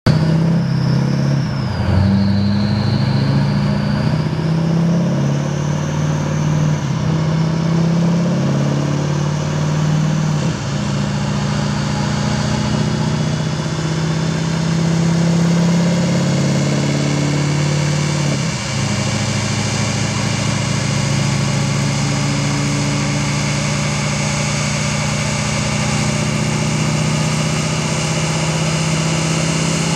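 GMC Sierra's 6.6-litre Duramax turbo-diesel V8 running on a chassis dyno, driving the rear wheels on the rollers. The engine note holds fairly steady, with brief dips about 2, 10 and 18 seconds in. A high whine falls and rises over the first several seconds.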